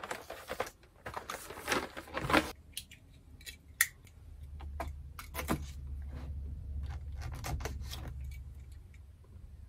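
Cardboard packaging and a boxed paint set being handled, rustling and scraping, with a few sharp clicks and scrapes from a plastic box cutter. A low steady rumble runs underneath in the second half.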